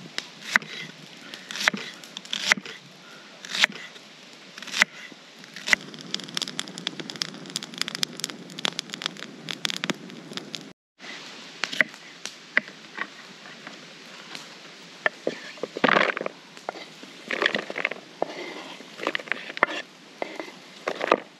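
A kitchen knife chopping onion on a wooden cutting board, a sharp chop about once a second. Then an open wood fire crackling under a hanging kettle. After a short break, clatter and scraping as chopped onion and peppers are pushed off the wooden board into a plastic bowl.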